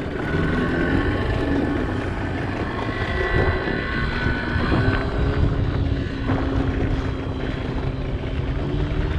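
Boat outboard motor running steadily, its pitch drifting slightly, over a rush of wind and water.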